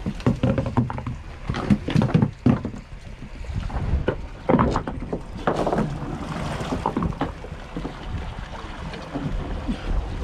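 Knocks and thumps against a fishing boat's deck and gunwale over a steady low rumble of boat and sea, while a hand line is hauled in over the side.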